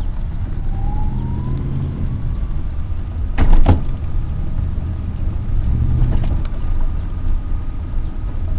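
Invacare TDX SP power wheelchair driving along pavement. There is a low rumble throughout and a thin motor whine that rises in pitch over the first two seconds, then holds steady. Two sharp knocks come about three and a half seconds in and a lighter one near six seconds.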